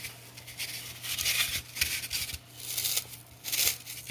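Crinkling and rustling from hands handling things, in a run of short scratchy bursts.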